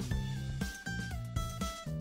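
Instrumental background music led by guitar over a bass line, the notes changing every half second or so.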